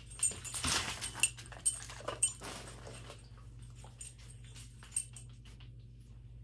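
A dog making a few short whimpering sounds, mixed with several sharp clicks, over the first two and a half seconds, then one more click near five seconds before it goes quiet.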